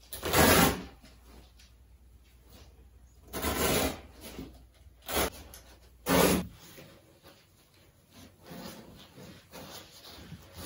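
Old wall-to-wall carpet being pulled up off the floor: four loud rasping tears in the first six and a half seconds, the loudest at the start. Softer scraping and rustling follow as the carpet is rolled up.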